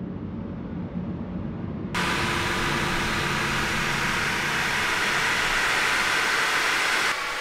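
A muffled, rumbling whoosh of slow-motion sound design for a Life Saver candy shattering. About two seconds in it cuts abruptly to a loud, even hiss with a faint steady hum in it, which drops away near the end.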